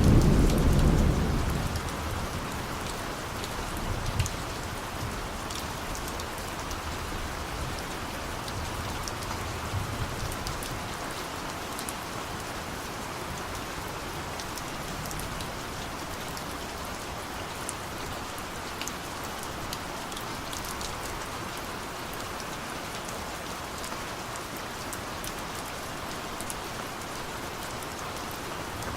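Steady rain with scattered drop ticks. A distant thunder rumble dies away in the first couple of seconds, and fainter low rumbles swell about four and ten seconds in.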